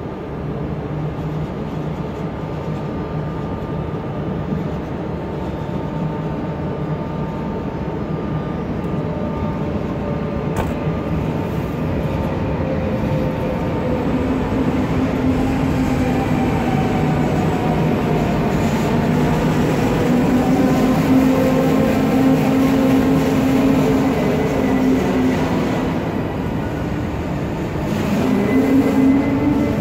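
Electric locomotive hauling a rake of passenger coaches as it departs and pulls past. It runs with a steady drone and several tones that slide in pitch, and it gets louder as the train gathers way.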